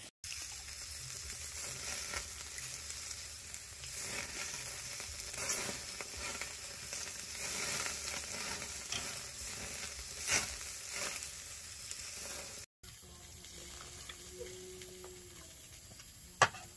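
Chicken, meat and bell peppers sizzling on a wire grill rack, a steady crackling hiss with scattered pops. It cuts off about two thirds of the way in to a quieter stretch, with a sharp click near the end.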